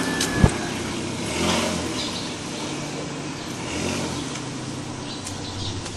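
A Nissan Tiida's engine running as the car creeps forward at low speed onto a ramp, its low rumble swelling a little twice. A single sharp thump comes about half a second in.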